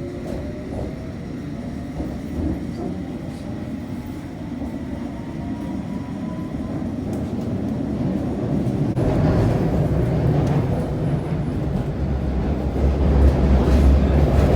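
London Underground train running, with a motor whine that rises in pitch over the first several seconds as it gathers speed. The rumble grows steadily louder and turns heavy and deep in the last few seconds.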